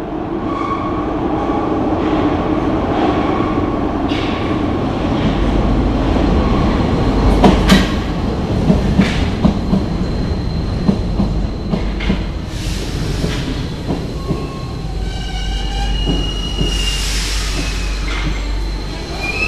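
RATP MF77 metro train pulling into the station: a rumble that grows louder as it approaches, with wheels clacking over rail joints as it passes. Near the end come high steady brake squeals and a burst of hiss as it slows to a stop.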